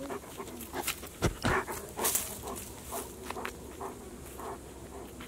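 Short animal calls repeating here and there, with a few sharp knocks or crunches about one to two seconds in.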